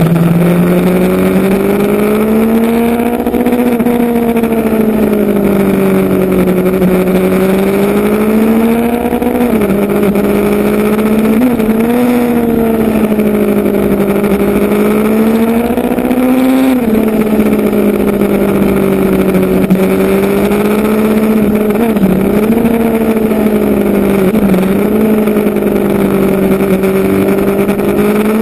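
Motorcycle engine running while riding. Its pitch rises and falls gently and dips sharply a few times before coming back, over a steady rushing noise.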